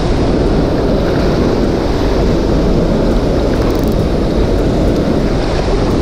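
Steady, loud rush of water pouring out of a dam outlet and churning through the river just below it.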